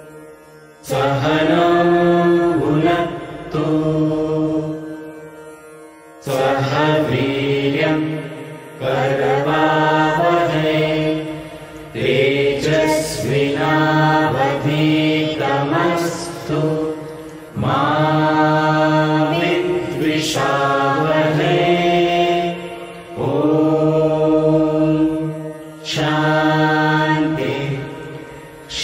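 A group of men's and women's voices chanting a prayer together in long, sustained phrases, with short breaks for breath every few seconds.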